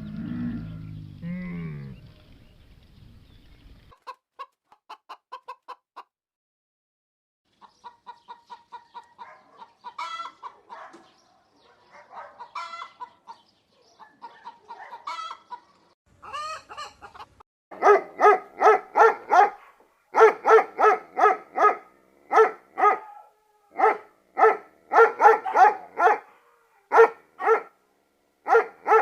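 Chickens clucking: the end of a cow's moo fades out in the first two seconds. Then come quiet, intermittent runs of clucks, turning loud and rapid, about three to four a second, in the second half.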